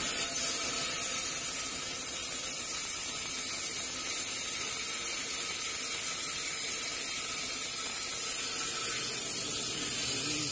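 Diamond-blade rock saw cutting through a round agatized coral geode, a steady high hiss that holds even throughout.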